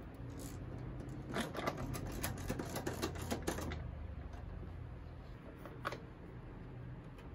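Socket ratchet clicking in quick runs as a seat mounting nut is worked, for a couple of seconds, then one more click a few seconds later. A low steady hum runs underneath.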